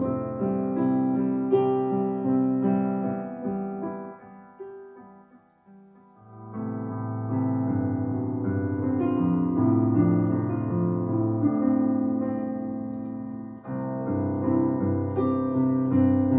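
Background piano music. It fades almost to silence about five seconds in, then starts up again a little over a second later.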